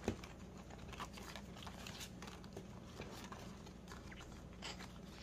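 Faint rustling of a paper sheet and a few light ticks as the sheet is handled and fitted into a ring binder.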